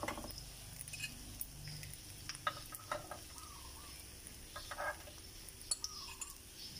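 Metal spoon clicking and scraping against the non-stick cups of an electric quail-egg pan and a plate as cooked quail eggs are scooped out: a string of short sharp clicks, the loudest in the second half, over a faint sizzle from the still-hot pan.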